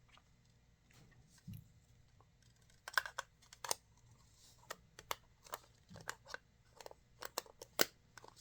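Sharp plastic clicks and taps, a quick irregular run of them starting about three seconds in, from AAA batteries being fitted into an electric pepper grinder's battery holder.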